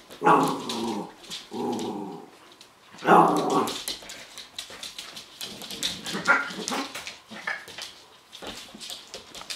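Havanese puppies playing, yipping and whining: three louder calls in the first four seconds, then shorter, higher yips, with rustling and scuffling throughout.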